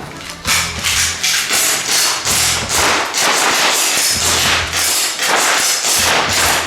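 Gas blowback airsoft pistols firing rapid shots, about three to four sharp cracks a second, overlapping as two shooters fire at once.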